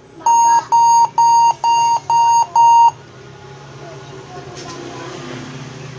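HP 14s laptop giving six short, even beeps of one high pitch at power-on, about two a second, then falling quiet.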